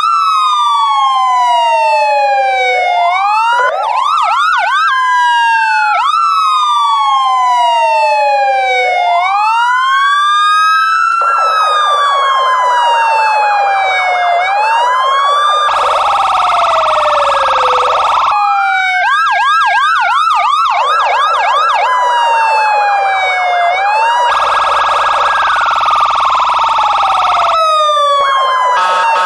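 Police car siren wailing, each cycle rising quickly and then falling slowly over about three seconds, with more than one siren overlapping. Partway through, a steady blaring tone joins in, louder for a few seconds twice.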